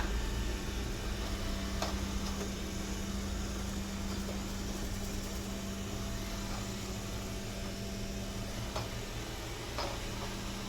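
Steady low mechanical hum of room background noise, with a few faint clicks.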